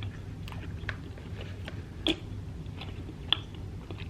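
Close-miked chewing of a frosting-filled sugar cookie cup: soft wet mouth smacks and clicks, with two sharper ones about two and three seconds in, over a faint steady low hum.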